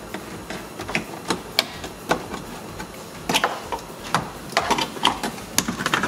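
Plastic retaining clips of a Dodge Journey's rear cargo trim cover popping loose as the cover is pried off with a screwdriver: a run of irregular sharp clicks and snaps.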